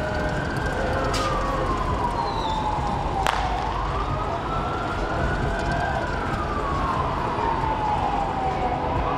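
Emergency-vehicle siren in a slow wail, its pitch climbing quickly and then sliding down over a few seconds, about two full cycles, over steady street and crowd noise. A single sharp pop about three seconds in.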